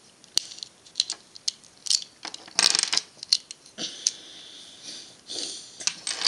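Plastic puzzle-cube pieces clicking and clacking as a LanLan 2x2 is pulled apart by hand and its corner pieces are set down on a table. Scattered sharp clicks, a quick run of clacks about two and a half seconds in, and a stretch of plastic scraping around four seconds in.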